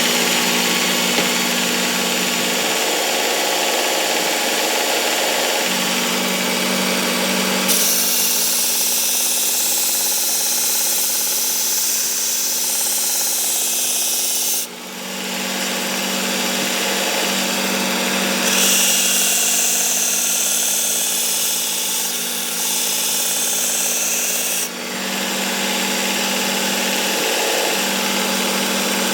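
Work Sharp Ken Onion Edition Mk2 sharpener with its blade grinding attachment running a 120-grit abrasive belt while a thick, dull meat cleaver's edge is ground on it: a steady motor hum under a hissing grind. The grinding sound shifts at intervals and drops briefly twice, about 15 and 25 seconds in.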